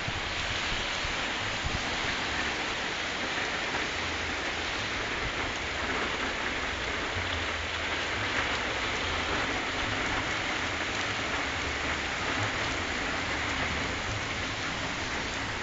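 Heavy rain pouring down in a steady, even hiss, with an uneven low rumble coming and going underneath.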